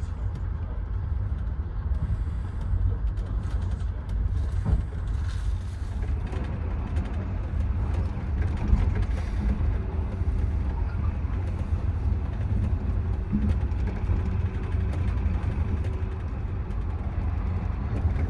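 Steady low rumble of a moving passenger train heard from inside a 25G soft sleeper car, its wheels running on the rails, with two brief knocks, about five and nine seconds in.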